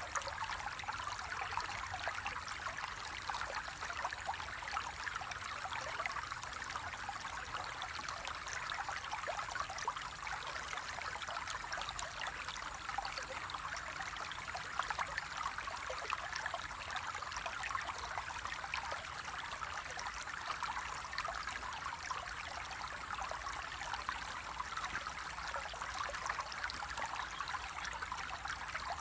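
Flowing water trickling and babbling steadily, a continuous rush dense with small splashes.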